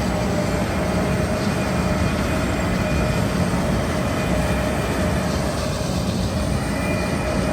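John Deere 8600i self-propelled forage harvester running under load while chopping maize for silage: a steady, heavy mechanical drone with no change in level.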